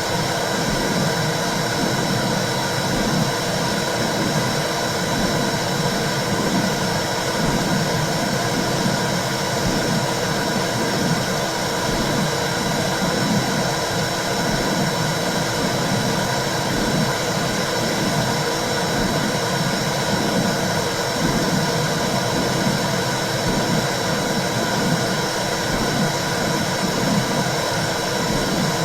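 Womb sound for soothing babies: a steady, loud, low whooshing rush with a soft pulse about once a second.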